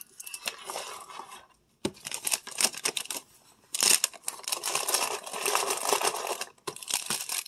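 Plastic food wrappers and packaging rustling and crinkling as items are packed into a soft insulated lunch bag, in irregular bursts with a few sharp clicks, busiest and loudest in the second half.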